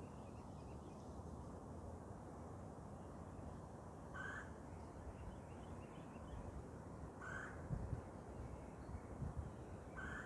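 A large bird calling: three short calls spaced about three seconds apart. A couple of low thumps come in between the last two calls.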